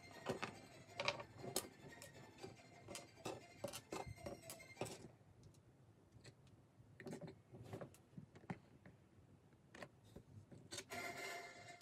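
Light clicks and taps of small plastic model-kit parts being handled on a desk, many in the first five seconds, then only a few scattered ones. Quiet music comes in near the end.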